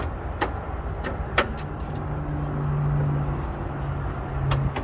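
A few sharp metallic clicks and taps, about three, from parts being handled at the car's radiator support. Under them a low steady engine hum from a vehicle comes in after about a second and a half and holds.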